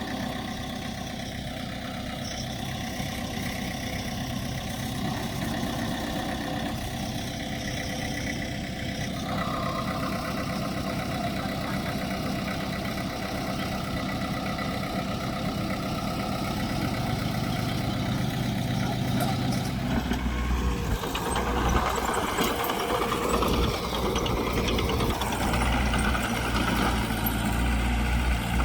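Diesel engines of heavy earthmoving machinery running steadily. About two-thirds of the way in they get louder, with a stronger low engine note.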